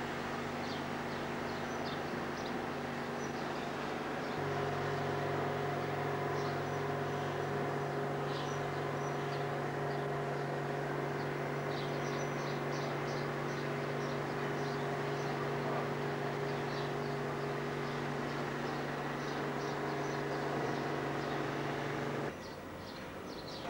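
Diesel locomotive engine idling steadily with a low, even hum, heard close to its open engine compartment; the hum steps up a little about four seconds in and drops away briefly near the end. Faint high chirping runs over it.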